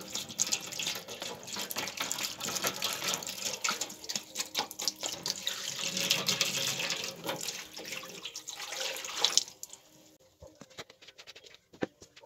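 Water running and splashing, cutting off abruptly about nine seconds in, followed by a few scattered faint clicks.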